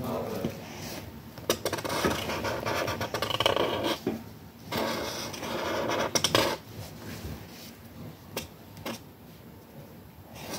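Scratching and rubbing on paper by hand, in two stretches of about four and two seconds. After that come quieter handling and a few light clicks and taps.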